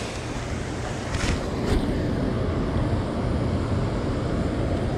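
Steady rush of wind buffeting the microphone, with a low rumble underneath and two faint clicks about a second and a half in.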